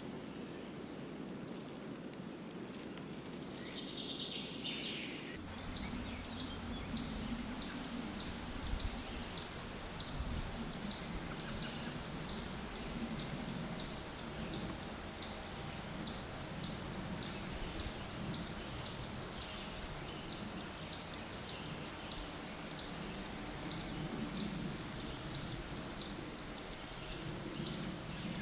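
Birds chirping: short high chirps repeated rapidly, a few a second, over a low rumble of wind. The ambience changes abruptly about five seconds in, from a quieter hum to this chirping, and two chirps stand out louder partway through.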